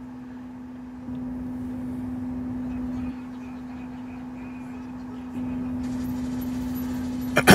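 Steady low hum of an idling diesel truck engine: one unchanging tone with a rumble beneath it. It steps louder about a second in, drops back around three seconds, and rises again past the five-second mark.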